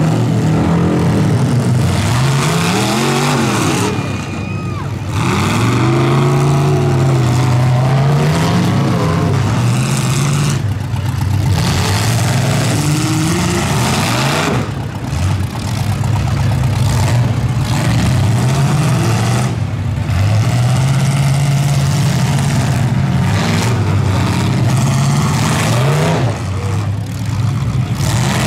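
Demolition derby pickup truck engines revving hard, the pitch climbing and dropping over and over as the trucks accelerate and back off, with a few brief lulls.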